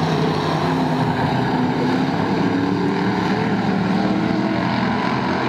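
A pack of hobby stock race cars running together around an oval track, their engines blending into one continuous sound with pitches that waver as the cars move around the turn.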